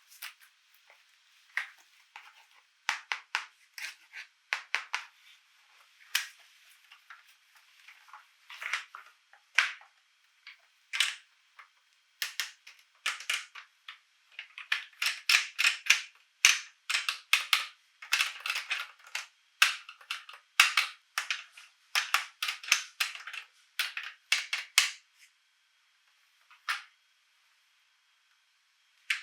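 Sharp crackles and clicks of plastic toy parts and packaging being handled, coming in uneven runs that grow dense in the second half, then stop with a single last click.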